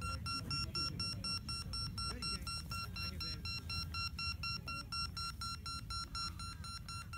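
Beep baseball ball giving a steady, rapid string of high electronic beeps, sounding continuously over a low rumble. The beeping lets visually impaired batters track the ball by ear.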